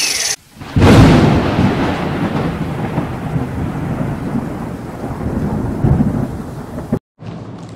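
Thunder sound effect: a loud crash about a second in, then a rolling rumble with a rain-like hiss that slowly fades and cuts off suddenly near the end.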